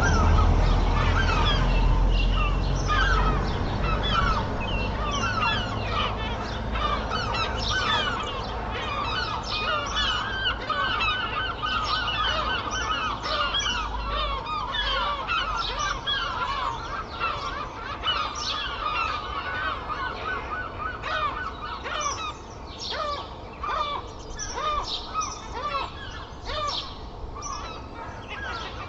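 Dawn chorus: many songbirds chirping and singing at once, with gulls calling among them. Underneath runs a low traffic rumble that fades about halfway through.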